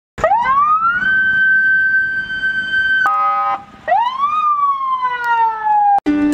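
Police car's electronic siren wailing. It rises and holds a high note for about three seconds, gives a short, steady, blaring horn tone, then rises again and slowly falls before cutting off abruptly near the end.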